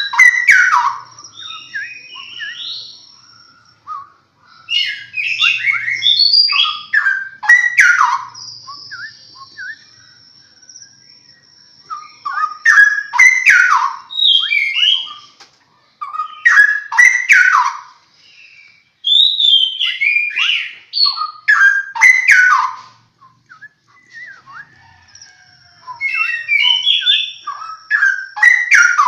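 Straw-headed bulbul (cucak rowo) song: loud, rich, fluty whistled phrases delivered in bursts of a second or two with short pauses between, at times overlapping.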